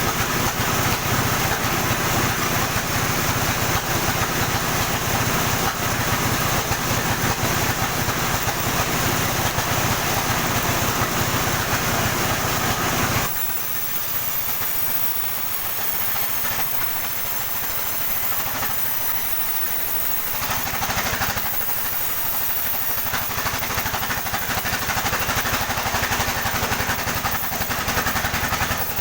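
Sawmill sawing a coconut palm trunk: a loud, steady machine noise with an engine hum under it. About 13 seconds in it drops suddenly to a quieter running sound with a high whine, then swells again a few times.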